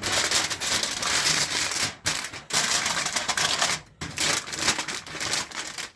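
Aluminum foil crinkling and rustling as it is folded and pressed around a smoker's cooking grate, with brief pauses about two and four seconds in.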